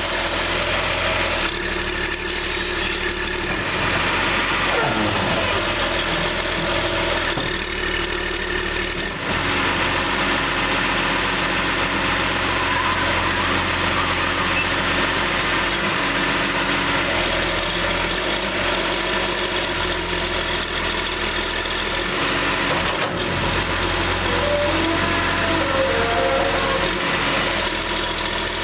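John Deere 710D backhoe's diesel engine running steadily, its tone shifting a few times.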